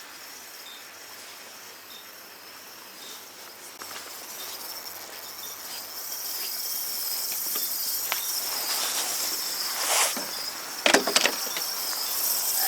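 Crickets trilling steadily in one high, slightly wavering tone. About halfway through a hiss grows louder beneath it, and a few sharp clicks and clatters come near the end.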